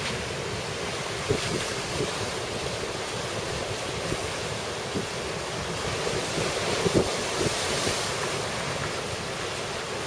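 Heavy storm surf crashing and washing over a stone seawall, a steady roar of rough sea. Wind buffets the microphone in short gusts about a second in and again near the middle.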